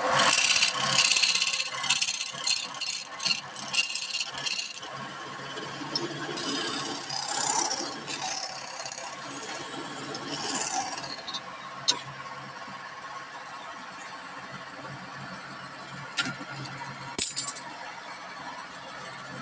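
Wood lathe running with a steady hum while a turning tool cuts the spinning wood in rattling, scraping bursts, heaviest in the first few seconds and more scattered later, with a few sharp ticks.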